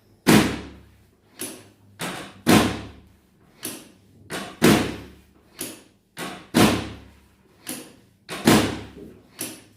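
Chiropractic spinal adjustment on a patient lying face down: a steady series of thuds, one to two a second, some stronger than others, as pressure thrusts are given through the back on the treatment table.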